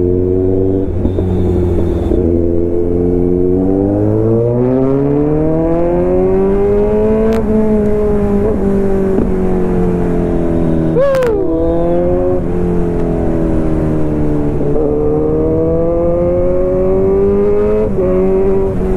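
Kawasaki Z900 inline-four engine running under way, its pitch climbing as the bike accelerates about four seconds in. It eases off slightly, then climbs again in a second pull before easing near the end.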